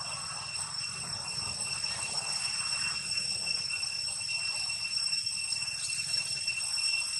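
Steady, high-pitched drone of insects, unchanging over a soft forest background.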